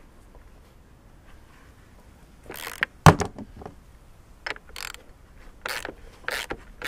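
Socket ratchet undoing a lawnmower wheel nut: a sharp knock about three seconds in, then short bursts of ratchet clicking with each back-swing of the handle.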